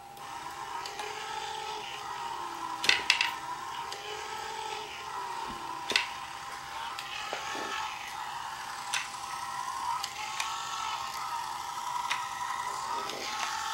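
Back2Life back massager's electric motor and gearbox running: a steady whine whose other tones rise and fall in a slow cycle of about two seconds as the mechanism strokes back and forth. A few sharp knocks come through, the loudest about three and six seconds in.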